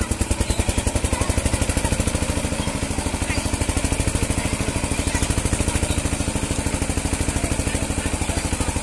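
A small engine running steadily at an even, fast chugging beat.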